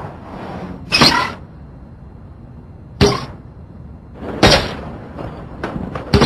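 Four sharp, heavy impacts about one and a half to two seconds apart, each with a short ringing tail. The first is the longest.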